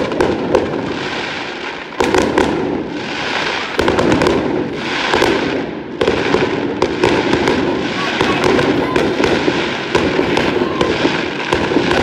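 Aerial fireworks going off, with a dense, constant crackle of many sharp pops. The loudness jumps up suddenly a few times.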